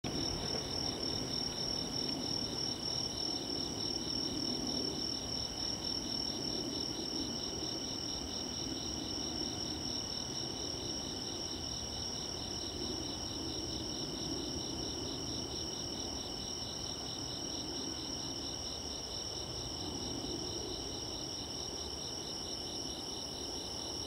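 Night chorus of autumn insects: several high, steady trills layered together, one of them rapidly pulsing, over a faint low background rumble.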